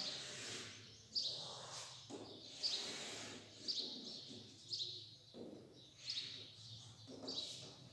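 Chalk on a blackboard: short high-pitched squeaks and scrapes about once a second as a line and tick marks are drawn.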